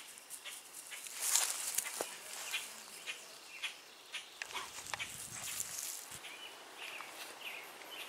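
Footsteps rustling through grass, a run of short crackly swishes, with a few birds chirping in the background near the end.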